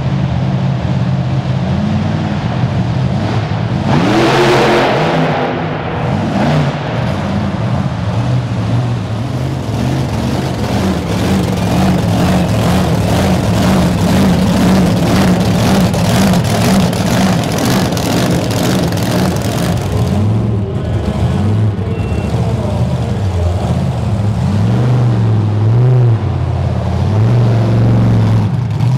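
Monster truck engines running and revving hard, the pitch rising and falling throughout, with a loud surge about four seconds in.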